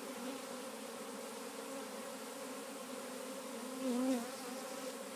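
Swarm of honeybees buzzing in a steady, many-voiced hum, with one louder, wavering buzz passing about four seconds in.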